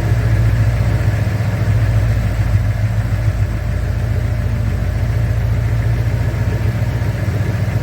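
2011 Mustang GT's 5.0-litre V8 engine idling steadily.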